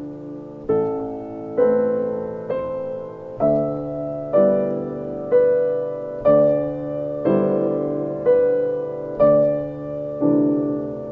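Slow, gentle solo piano music, a note or chord struck about once a second and left to fade before the next.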